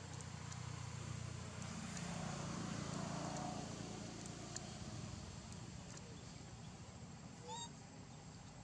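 A distant motor vehicle passing, its low rumble swelling and then fading over a few seconds. Faint scattered clicks, and a short high rising chirp near the end.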